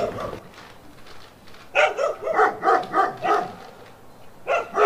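A dog barking: a quick run of short, high yapping barks lasting about a second and a half, then another short run near the end.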